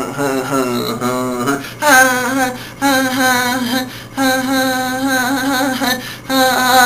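A voice singing a wordless tune in separate phrases about a second long, each with a slight waver in pitch, between verses of a song.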